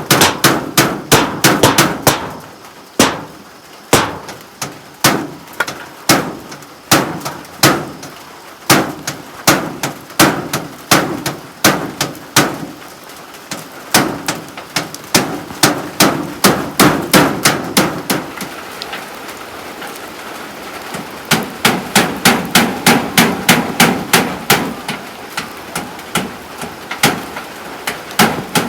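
Hammer driving nails, struck in quick runs of several blows a second with short pauses between the runs.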